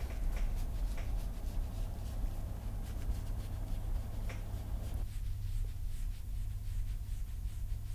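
Fingers scratching through a cat's fur under its chin and along its cheek: a soft, repeated rustling scratch over a low, steady rumble.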